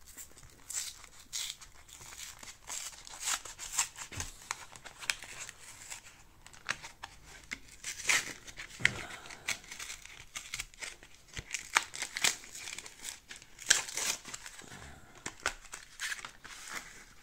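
Foil Pokémon booster pack wrapper crinkling and tearing as it is handled and opened: a dense run of irregular sharp crackles.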